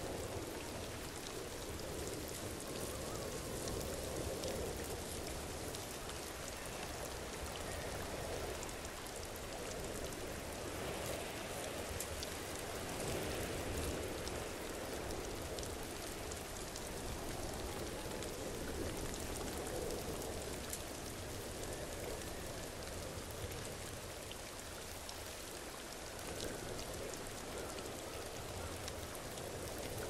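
Waterfall: a steady rush of falling water with a fine splashing patter over it, swelling and easing slightly.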